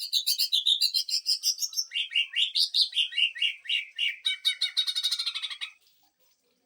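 Green leafbird (cucak ijo) singing a rapid 'sewing-machine' burst: fast, evenly repeated notes that step down in pitch, then quicken into a dense rattling trill before stopping suddenly about six seconds in.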